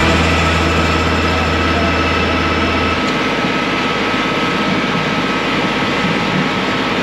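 Compact tractor's engine running steadily as the tractor drives slowly.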